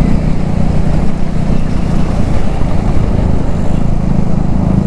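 Wind rumbling heavily on a microphone fitted with a foam sponge and a dead-cat windscreen while riding a motorcycle, with the motorcycle engine's steady hum underneath.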